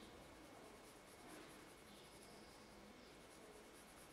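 Near silence: faint scratching of a pencil drawing on paper over quiet room tone.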